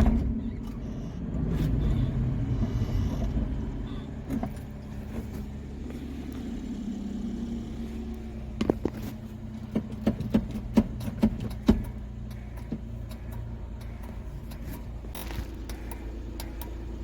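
Suzuki Carry DA63T kei truck's 660 cc three-cylinder engine running steadily at low revs, with a run of sharp knocks about nine to twelve seconds in.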